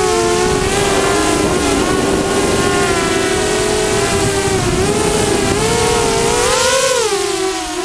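Storm Racing Drone SRD250 V3 FPV quadcopter's brushless motors and propellers whining in flight, heard from its onboard GoPro. Several close tones beat against each other over a low rush of air noise, and the pitch swells up and drops back near the end as the throttle is pushed and eased.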